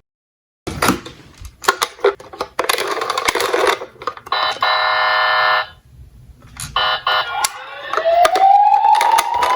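Clicks and clatter of small diecast toy cars, a steady electronic alarm buzz lasting just over a second about halfway through, then a siren wail rising in pitch near the end.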